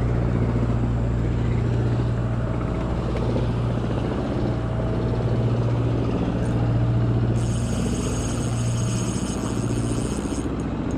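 Small boat engine running at a steady drone. A thin, high-pitched whine joins for about three seconds in the second half.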